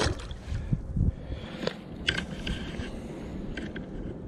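A small crappie dropped back into the water with a sharp splash. This is followed by a run of knocks, clicks and scrapes as fishing gear is handled on a plastic kayak.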